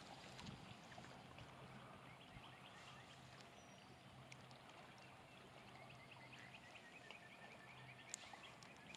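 Near silence: faint outdoor background with a low steady hum that stops about eight seconds in.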